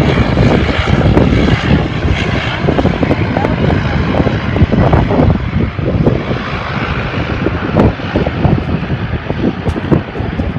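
Boeing 777F freighter's twin GE90 jet engines at high thrust on departure, giving a loud, uneven noise with a rough, crackling edge.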